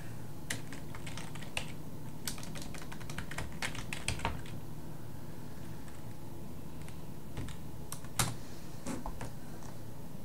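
Typing on a computer keyboard: irregular runs of keystrokes, thickest in the first four seconds and sparser after, with one louder click a little after eight seconds, over a steady low hum.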